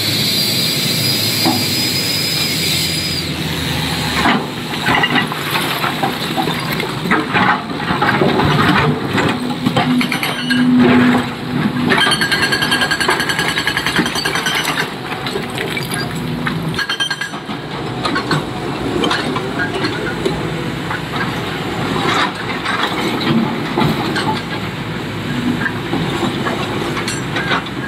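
Excavator running steadily at a work site, with repeated clanks and rattles of the bucket and stone through the engine noise.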